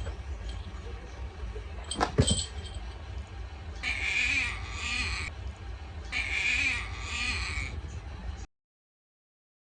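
Munchkin kitten giving two long, husky cries of about a second and a half each, rather than a clear meow. A sharp knock comes a second or so before the first cry, and the sound cuts off abruptly near the end.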